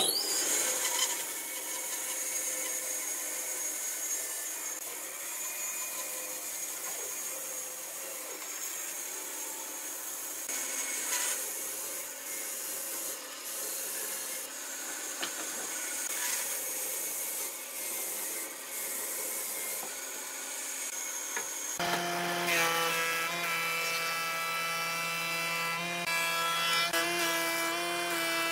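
Power tools working wood. For about 22 seconds a tool whines steadily at a high pitch over a rough cutting or sanding noise. Then, after an abrupt change, a different machine takes over with a steady hum of several tones.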